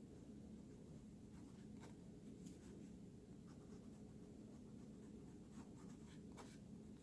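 Fountain pen nib writing cursive on lined paper: faint, short scratching strokes over a low steady background hum.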